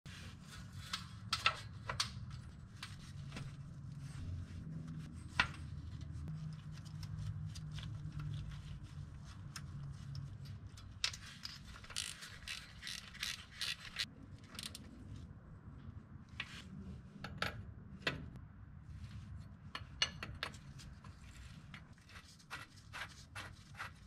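Irregular metallic clicks and short scrapes of a socket wrench and gloved hands working at the speedometer cable fitting on a Nissan D21 pickup's transmission, with a quick run of clicks about twelve seconds in. A low hum sits under the first half.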